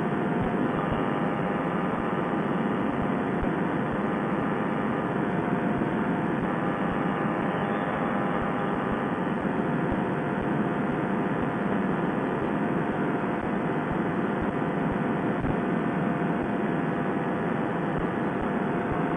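Fresh Breeze Monster paramotor's two-stroke engine and propeller running steadily at flying power, over a haze of wind noise.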